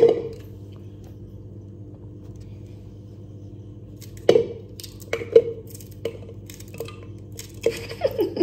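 Kitchen scissors snipping through fresh okra pods over a plastic cup: a single sharp knock at the start, then from about four seconds in a run of short crisp snips and clicks, over a faint steady hum.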